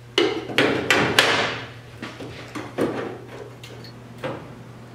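Thin steel patch panel clanking and rattling against the car body as it is handled: a quick run of about four sharp knocks with some ringing in the first second and a half, then a few lighter knocks.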